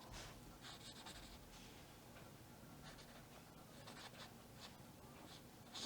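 Faint, short scratchy strokes of paint being laid onto a canvas, several in a row at irregular intervals, over a low room hum.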